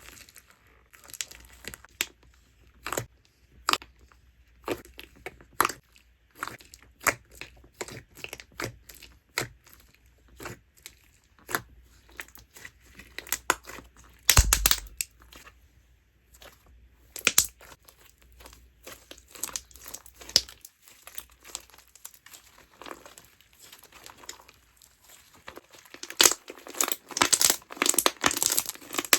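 Cheese-textured slime being poked and squished by fingers, giving irregular sharp pops and crackles. One louder pop with a low thud comes about halfway through, and the pops come thicker and louder near the end.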